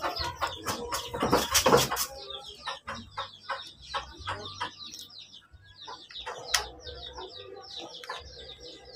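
Birds calling in short, repeated chirps and clucks, with a few louder knocks and clatters in the first two seconds.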